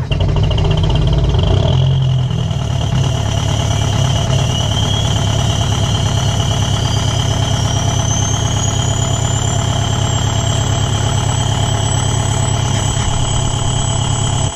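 Volkswagen Jetta's BRM 2.0 TDI diesel idling through a straight-piped exhaust just after a cold start on bad glow plugs, running with a fast, even beat. A thin high whistle rises in pitch from about four seconds in and then holds steady.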